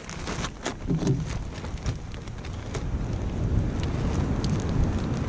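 Wind buffeting the microphone as a steady low rumble, with a few faint clicks scattered through it.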